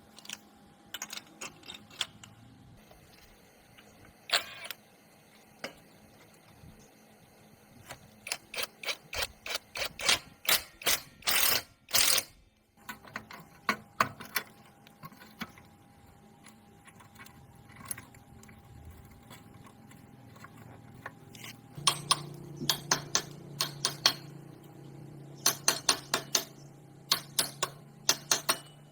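Irregular clicks and clinks of metal tools and parts being handled during motorcycle repair work, coming in quick runs with short pauses between them.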